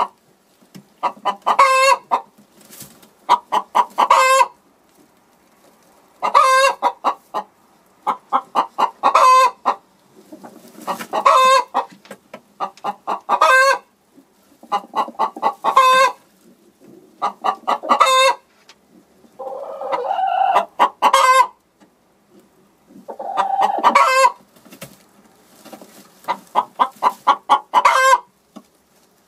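A hen clucking in bursts of rapid clucks every second or two, with a couple of harsher, rougher calls about two-thirds of the way through.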